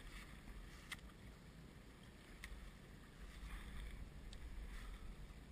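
Water lapping and splashing against the hull of a small open boat, over a steady low rumble, with a couple of faint clicks about one and two and a half seconds in.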